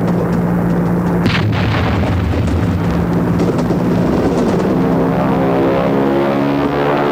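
A loud, low rumbling drone of dramatic soundtrack effects, with a sudden surge about a second in. From about halfway through, sustained brass-like chords swell in over it.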